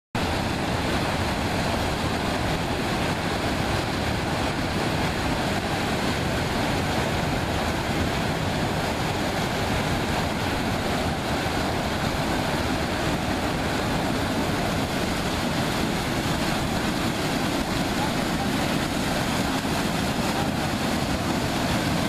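A small waterfall and its whitewater cascade pouring into a rock pool, rushing steadily without a break.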